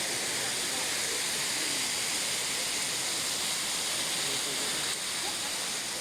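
Steady rushing hiss of a tall waterfall, the water falling and crashing without a break.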